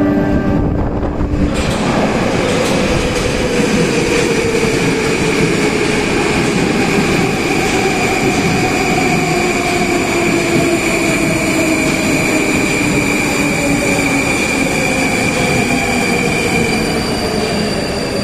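Moskva-2024 metro train pulling into the station: a loud rumble builds about a second and a half in. An electric whine falls slowly in pitch as the train slows, and a high steady squeal stops near the end.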